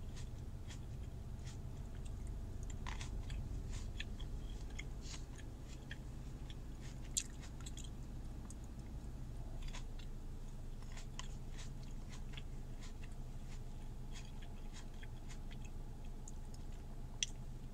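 Close-up chewing and biting of green grapes, with many small wet mouth clicks, inside a car. A sharper click comes about seven seconds in and another near the end, over a low steady hum that eases slightly about ten seconds in.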